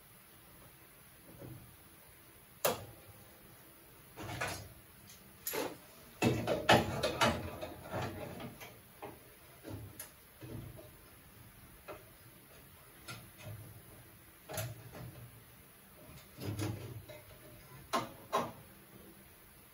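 Hand tools and clamps knocking and clicking against the sheet-metal body as a radiator support is clamped into position for welding. Scattered sharp clanks, with a busy run of knocks about six to eight seconds in.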